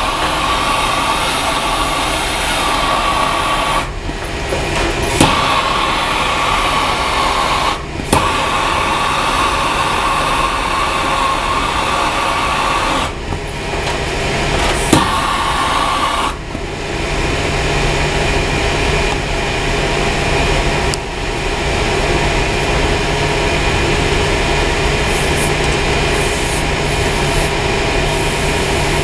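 Torch flame hissing as a copper pipe joint is heated and soldered, over the loud steady running noise of boiler-room machinery, with a few sharp metallic clicks.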